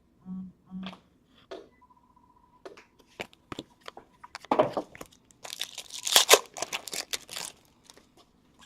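A hockey card pack wrapper being torn open and crinkled by hand: a few light clicks and rustles first, then a burst of tearing and crinkling a few seconds in.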